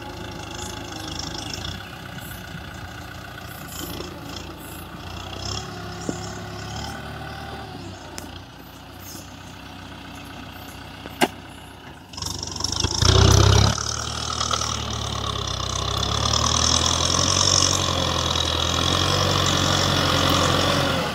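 Kubota M6040SU tractor's diesel engine running steadily as the tractor works a field with its blade and rear implement. About twelve seconds in the engine sound becomes much louder, with a brief heavy surge, then stays loud and steady.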